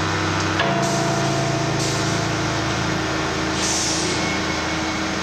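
Steady machinery hum in a workshop, with a few short bursts of hiss.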